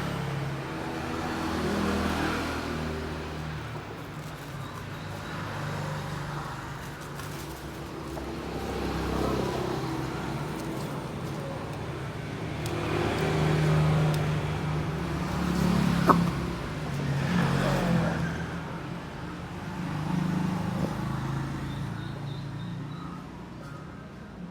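Vehicle engines passing, swelling and fading in several waves, with one sharp click about two-thirds of the way through.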